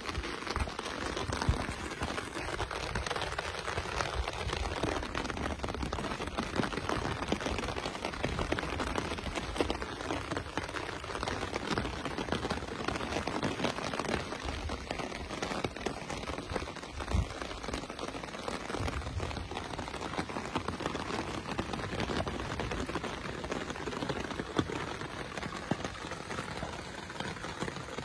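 Heavy rain falling steadily, with a dense scatter of close drops hitting nearby surfaces and one louder knock about halfway through.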